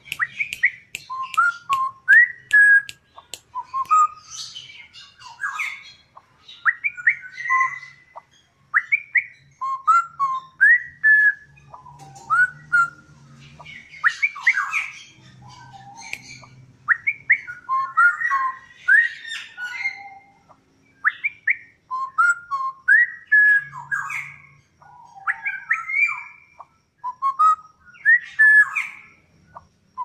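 Straw-headed bulbul (cucak rowo) singing: loud runs of short whistled notes that rise and fall, with brief pauses between phrases.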